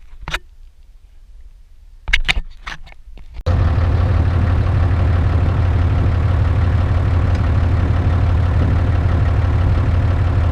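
An engine running steadily with a strong low hum, cutting in abruptly about three and a half seconds in. Before it there are a few short sharp clicks.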